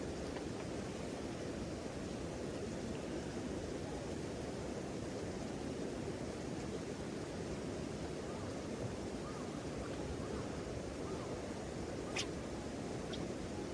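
Steady low rushing outdoor noise, with one short sharp click about twelve seconds in.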